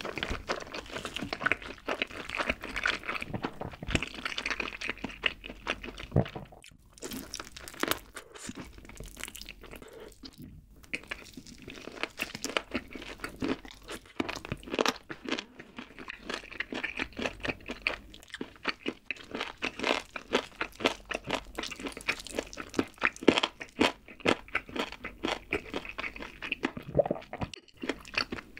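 Close-miked eating of barbecue-glazed chicken: biting and chewing with dense, irregular crunching and wet clicking, pausing briefly a couple of times.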